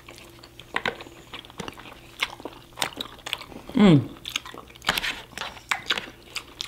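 Close-up eating sounds: bites and crunchy, wet chewing of a burrito or quesadilla, many short clicks and crunches. About four seconds in, a short pitched sound slides downward, like an appreciative "mmm".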